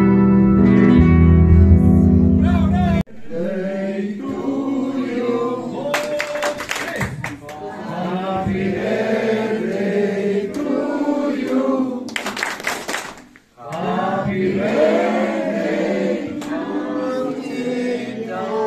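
Dance music with guitar plays for about three seconds and cuts off abruptly. Then a group of people sings together, breaking off briefly about two-thirds of the way through before resuming.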